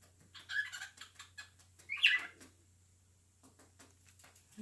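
Cockatiel making short high chirps and clicks, with one louder call about two seconds in that rises then falls, and a few faint clicks near the end.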